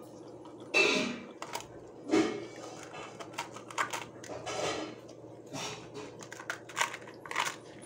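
A dog chewing and crunching crisp pani puri shells, with a run of irregular crunches and wet chewing clicks.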